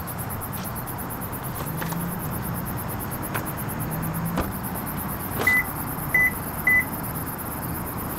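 Three short, high electronic beeps about half a second apart, over a steady low background rumble with a few faint clicks.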